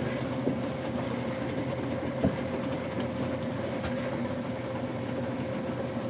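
O-scale model train locomotive running, pulling cars along the track: a steady electric hum with occasional light clicks and one sharper click about two seconds in.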